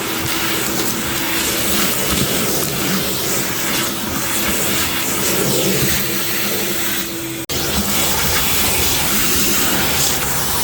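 Shop-Vac wet/dry vacuum running steadily, its sound shifting now and then as it works. It cuts out for an instant about seven and a half seconds in.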